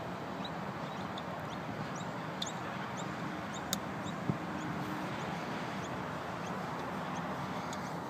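A 54-degree wedge clips a golf ball in a low pitch-and-run chip: one sharp click a little under four seconds in, with a dull thud just after. Small birds chirp throughout over a steady outdoor hiss.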